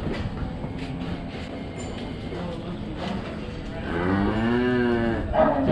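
A dairy heifer moos once, a single call of about a second and a half whose pitch rises and falls, about four seconds in. Low knocking comes before it, and just after the moo a sharp bang is the loudest sound.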